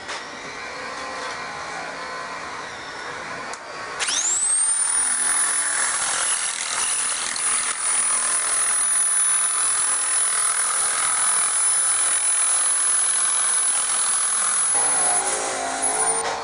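Handheld electric power tool cutting a thin steel sheet: its motor spins up about four seconds in with a quickly rising whine, then runs at a steady high whine through the cut, slowing near the end.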